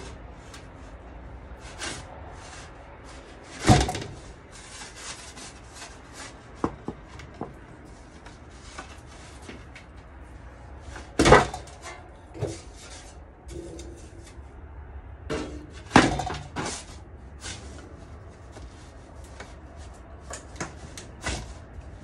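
Homemade metal pizza peel scraping and knocking against a metal tabletop as it is worked under a raw pizza, with three sharp louder clanks among many small scrapes and taps.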